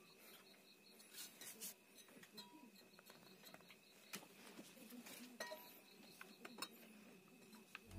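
Faint clinks and taps from a mild-steel helmet hanger being handled and slipped onto wall screws, a few separate clicks in near silence.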